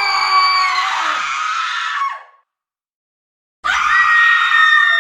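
Two loud screams, each a pitched, sustained cry. The first fades out a little after two seconds in, with a gap of total silence before the second starts about three and a half seconds in.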